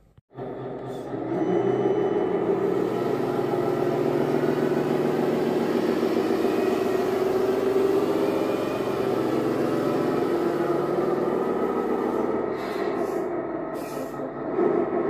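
An RC truck's electronic sound unit playing a diesel truck engine, starting up and then running steadily, with two short hisses near the end.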